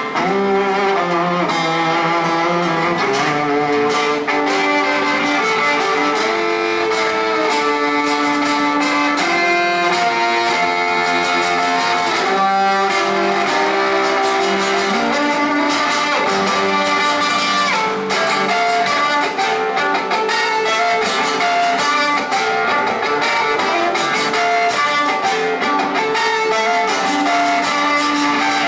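Violin and acoustic-electric guitar playing an instrumental duet through a small portable amplifier. The guitar's fast strumming and picking leads, with the violin's held notes over it.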